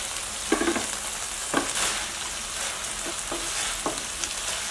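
Fried chicken pieces sizzling in hot oil in a non-stick pan while a spatula stirs them through the chilli-garlic masala to coat them, with several short scraping strokes of the spatula against the pan.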